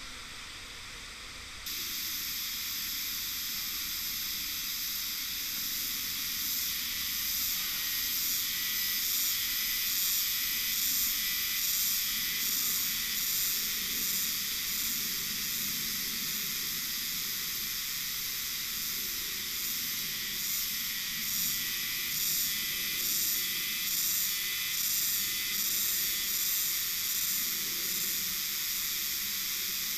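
Steady high-pitched chorus of cicadas in summer forest. It gets louder about two seconds in and takes on a regular pulsing of a little more than one beat a second.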